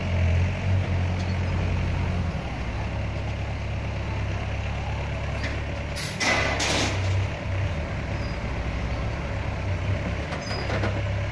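Heavy dump truck's diesel engine running with a steady low rumble. About six seconds in come two short hisses of released air, typical of the truck's air brakes.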